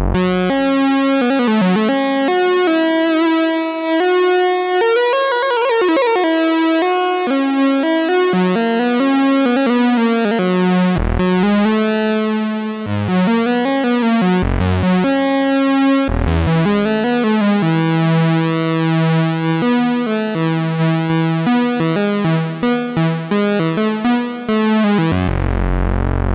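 Musonics Vanilla 5U analogue modular synthesizer playing a single-note line of held tones that slide and bend between pitches. Near the end the notes retrigger rapidly.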